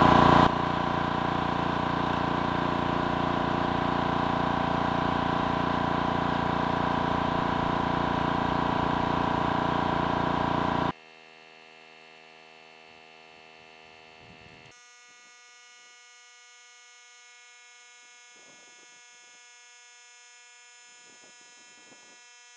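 Air Venturi 4500 PSI high-pressure air compressor running steadily while it fills a PCP air rifle's tank. About eleven seconds in it cuts off suddenly, its automatic shutoff at the set 200 bar, leaving a faint steady hum from its cooling system.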